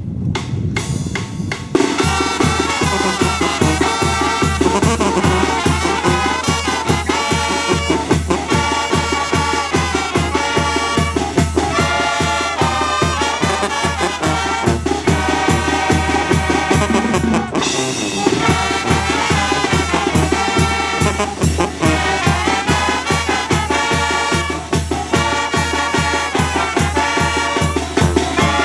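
Brass band playing: trumpets and trombones over a sousaphone bass line and a steady bass-drum beat, coming in at full strength about two seconds in.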